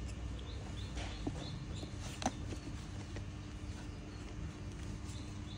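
Faint scattered clicks and taps with a few short high chirps over a low steady background hum.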